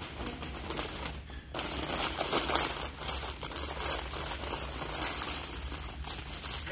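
Wrapping crinkling and rustling as it is handled, a dense run of crackles that picks up about a second and a half in.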